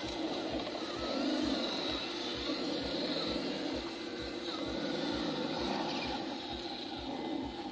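Traxxas TRX-4 Defender RC crawler's electric motor and geared drivetrain whirring steadily as it climbs a steep rocky slope. A faint low thud repeats about twice a second underneath.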